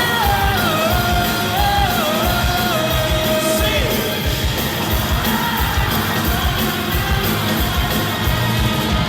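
Live rock band playing a song's intro through a loud PA, with a pounding drum beat and a held melody that steps up and down over the first few seconds, with shouts over the music.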